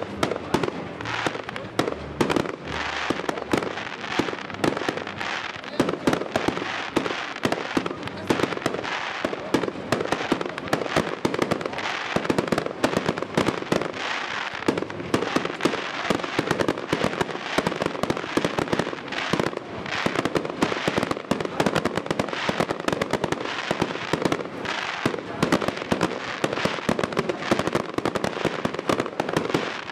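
Aerial fireworks bursting in a dense, rapid string of bangs with no pause.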